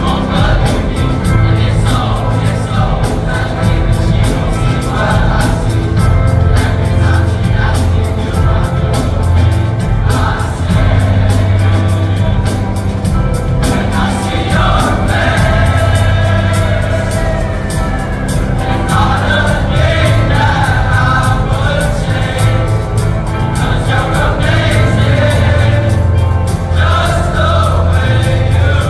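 A large choir of young men singing together over loud backing music with a steady beat.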